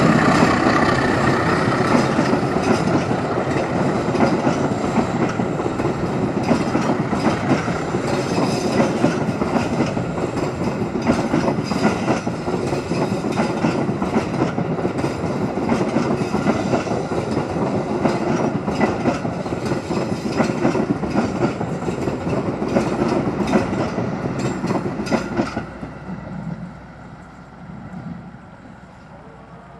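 Passenger train hauled by a CC206 diesel locomotive rolling past: the coaches' wheels clatter over the rail joints in many quick clicks. The sound drops off sharply near the end as the last coach goes by and the train moves away.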